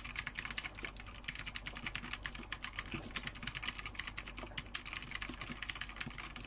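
Fast typing on a Corsair K70 PRO MINI WIRELESS 60% mechanical keyboard with thick PBT double-shot keycaps: a continuous clatter of key clicks, a 'kacha kacha kacha' sound.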